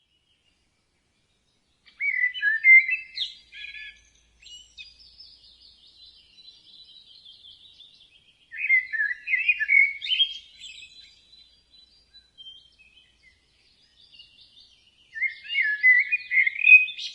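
Songbird singing: three loud warbling phrases about six seconds apart, with fainter chirping between them.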